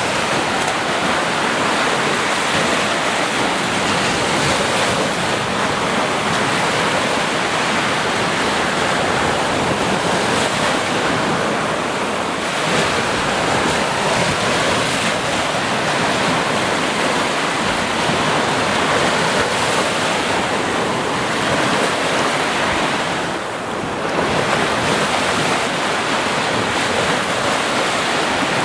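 Sea waves breaking on a beach: a steady, dense surf wash with little let-up, dipping briefly once near the end.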